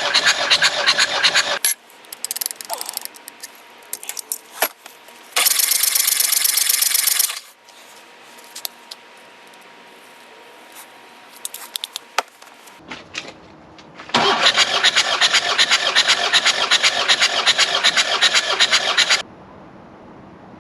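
Takeuchi excavator's diesel engine cranking over on its electric starter in three bursts, a short one ending about a second and a half in, another of about two seconds in the middle, and a long one of about five seconds near the end, without firing. It is being cranked to push a stuck fuel injector out of the head with cylinder compression. Scattered clicks and knocks fall between the bursts.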